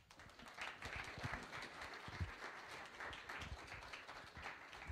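An audience applauding: the clapping builds up within the first second and then goes on steadily, fairly faint.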